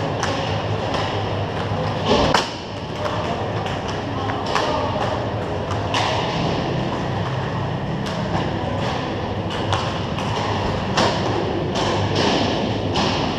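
Hockey game sounds: sticks knocking and tapping against the ball and the playing surface at irregular intervals, with one loud thump about two seconds in, over a steady low hum of the arena.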